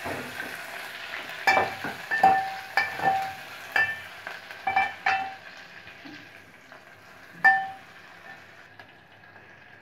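Metal ladle clinking and scraping against a metal pot while stirring onion, garlic and curry leaves frying in oil, about eight ringing clinks at an uneven pace. Underneath, a steady sizzle of the frying that grows fainter toward the end.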